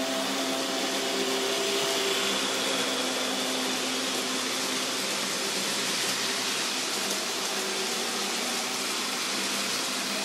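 N-gauge model electric locomotive and coaches running by on the track: a steady small-motor hum over the rush of wheels on the rails. The motor's tones fade about halfway through.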